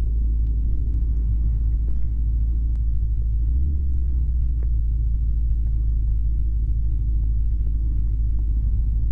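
Steady low rumble of a flexwing microlight's engine and airflow, heard from on board.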